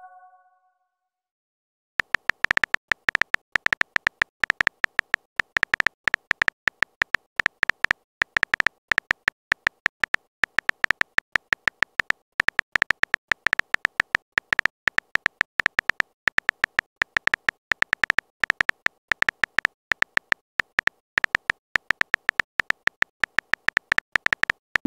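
Phone keyboard typing clicks: a rapid, uneven run of short key taps at several a second, with brief pauses. It starts about two seconds in and goes on until just before the end, while a text message is typed out.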